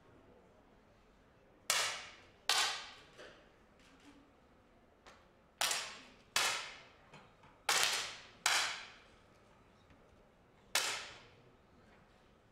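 10 m match air pistols firing: seven sharp pops from several shooters at uneven intervals, each echoing briefly, with a few fainter pops between them.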